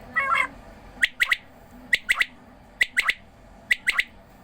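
Quail calling. A brief call comes first, then four repeated three-note phrases, each a sharp note followed by two quick ones, a little under a second apart.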